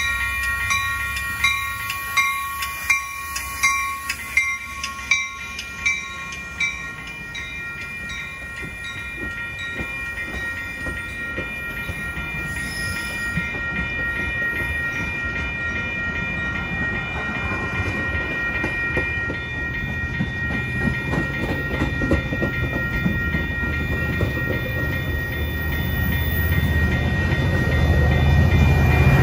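Railroad crossing bell ringing, struck about one and a half times a second and loudest in the first several seconds, as a train approaches with its rumble growing steadily louder toward the end.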